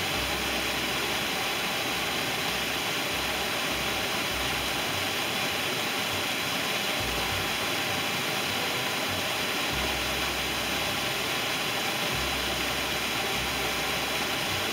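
Waterfall pouring into a plunge pool: a steady, unbroken rush of falling and splashing water.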